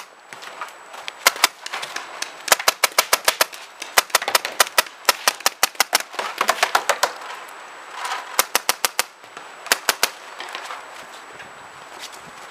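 Paintball markers firing in rapid strings of sharp pops, up to about eight shots a second, in bursts separated by short pauses.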